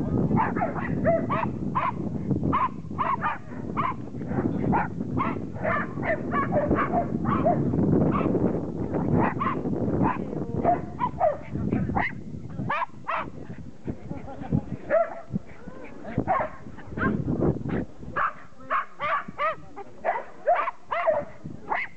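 Groenendael Belgian Shepherd barking in quick runs of short barks, several a second, then in more spaced-out single barks through the second half.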